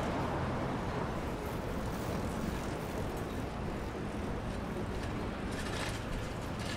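Steady low rumble of a motor engine running amid city street noise.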